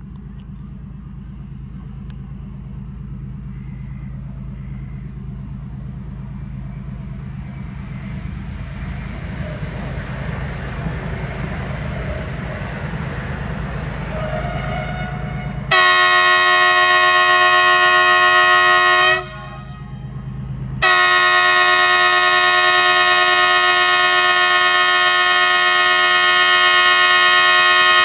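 MÁV M41 diesel-hydraulic locomotive approaching, its engine's low drone growing steadily louder, then sounding its horn: a loud blast of about three seconds, a break of under two seconds, and a second, longer blast.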